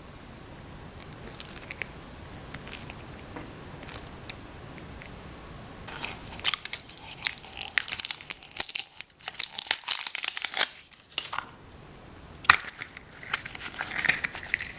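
Plastic toy packaging handled, then crinkled and torn open in bursts of dense crackling, with a few faint handling clicks before it.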